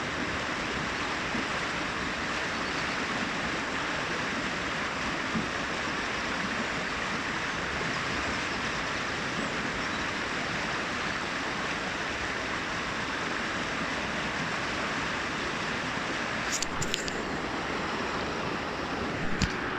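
Brook water cascading and babbling in a steady, even rush. A few brief clicks come near the end.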